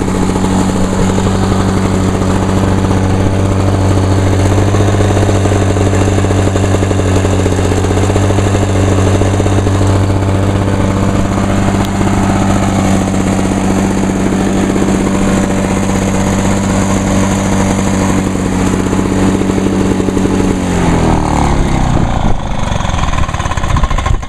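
1986 Lawn-Boy 8461 commercial mower's two-stroke engine running steadily, then shut off about 20 seconds in, its pitch falling as it winds down.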